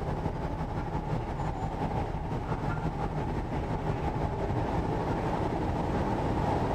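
Steady running noise of a Korean-built (Hyundai Rotem) MTR East Rail Line train in motion, heard from inside the carriage.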